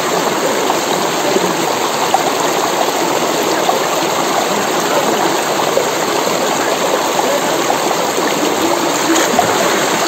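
Shallow mountain river flowing: a steady, even rush of running water.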